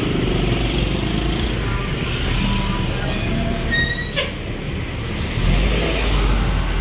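Road traffic noise, with a bus engine running close by over passing cars and motorcycles: a steady low rumble that swells about five seconds in.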